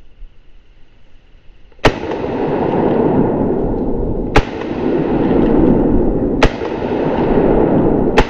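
Four shotgun blasts from a Yildiz semi-automatic shotgun firing magnum reloads, about two seconds apart, the first about two seconds in; the gun cycles each shot without jamming. A loud, rough rushing noise persists between the shots after the first.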